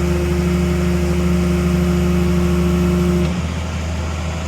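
Excavator's diesel engine running under load with a steady whine; about three seconds in the whine cuts off and the engine drops back to idling.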